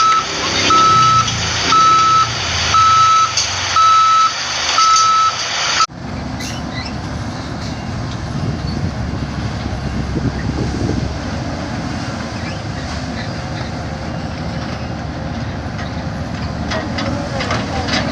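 Heavy machinery's reversing alarm beeping about once a second over engine noise. About six seconds in, this cuts off suddenly to a heavy engine running with a steady low rumble.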